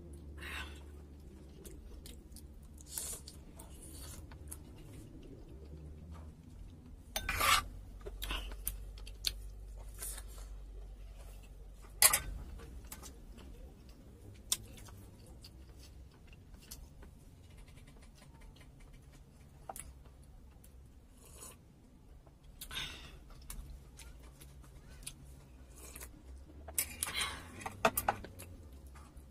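A spoon and fork scraping and clinking against a dinner plate, with chewing between the strokes. Scattered sharp clinks, the loudest about seven, twelve and twenty-eight seconds in.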